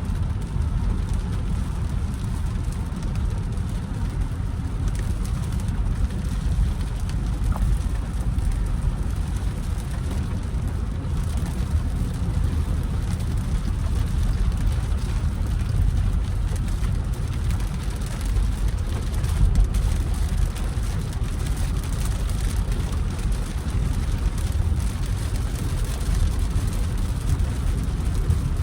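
Jeep Grand Cherokee with a Hemi V8 driving at a fairly steady pace, a constant low engine and road rumble with rain noise over it.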